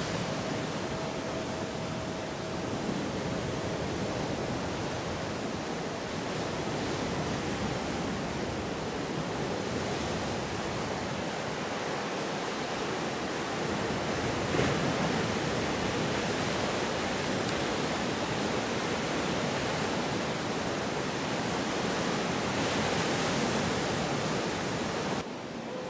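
Ocean surf breaking on a sandy beach, a steady rushing of waves with a louder surge about halfway through.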